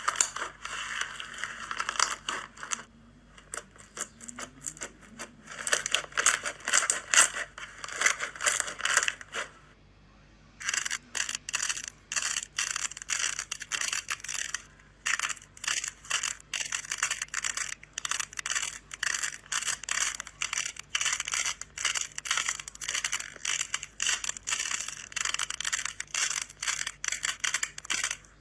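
Slime being squeezed and kneaded by hand, giving dense crackling, popping clicks in quick runs, with a short pause about ten seconds in.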